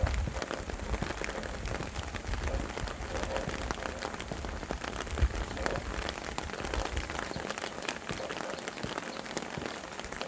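Steady rain, with many separate drops ticking close by over an even hiss. A low wind rumble in the first half dies away around the middle.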